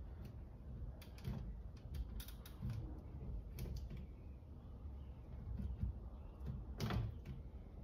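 Scattered small clicks, creaks and scrapes of hands and a small tucking tool working vinyl wrap film into the trim grooves of a plastic car grille, with one louder scrape near the end.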